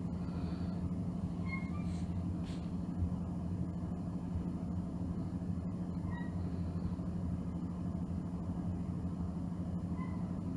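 Steady low hum throughout, with a few faint, short cat calls from another cat a little way off: one pair about a second and a half in, one around six seconds in, and one near the end.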